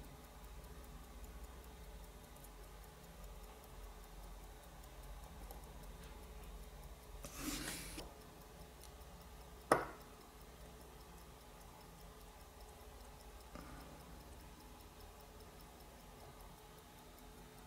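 Vintage Omega chronograph movement ticking faintly and steadily. A brief hiss comes a little before halfway, and a single sharp click, the loudest sound, just past halfway.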